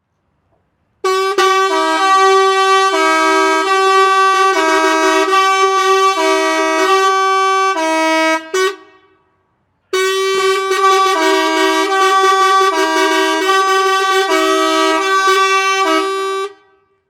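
Musical truck air horn playing a short tune of alternating notes over a held tone, sounded twice for about seven seconds each with a brief pause between.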